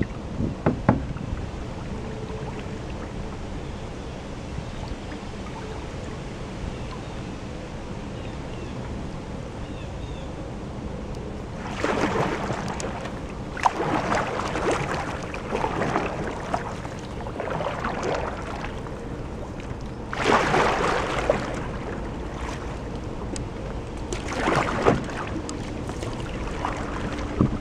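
Canoe paddle strokes swishing and splashing in the water. The strokes come roughly every two seconds in the second half, with a few short knocks among them. Underneath is a steady low rumble of wind on the microphone.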